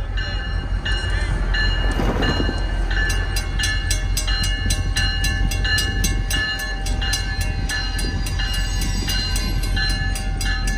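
Grade-crossing warning bells ringing in a steady repeating ding about twice a second as the crossing activates for an approaching train, with a second, faster clanging joining about three seconds in. Under them is the low rumble of the approaching MBTA F40PH-3C diesel locomotive.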